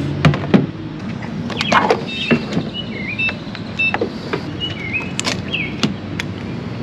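Refuelling at a gas pump: sharp knocks and clicks from plastic fuel jugs being set down and the pump nozzle being handled, the loudest in the first second, over a steady background hum. Short high chirps come and go throughout.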